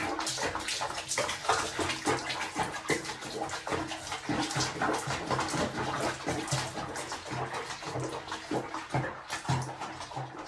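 Bath water splashing and sloshing in a small basin with a cat sitting in it, in quick irregular splashes throughout.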